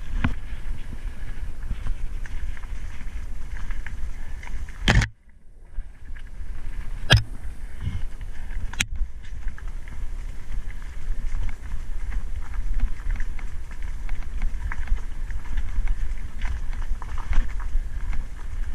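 Wind buffeting and rumble on an action camera riding along on a mountain bike over a dirt trail, with scattered knocks and rattles from the bike on rough ground. The sound drops out briefly about five seconds in, just after a sharp knock.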